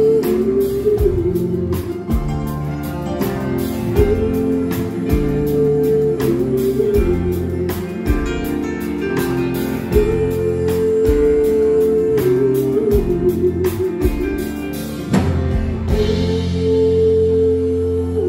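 Live band playing a slow country ballad on acoustic guitar, electric guitar, upright bass, keyboard and drums, with long held notes over a steady beat. About fifteen seconds in comes a final accent, then a held chord rings on as the cymbals fade.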